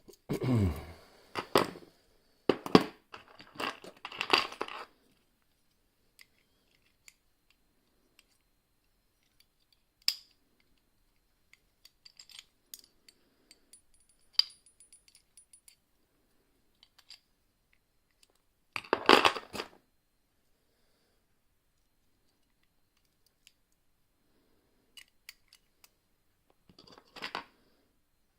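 Small metallic clicks and scrapes of a home-made lever-lock pick and key-blank tension tool working inside a Walsall 2000 five-lever padlock. The sounds come in a busy cluster at first, then as sparse faint ticks, with a louder short rasp about two-thirds of the way through and another near the end.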